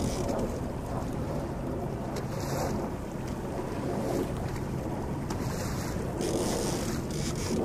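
Wind buffeting the microphone and water washing against a small boat's hull, over a low steady hum from its outboard motor. The wind gusts rise and fall a few times.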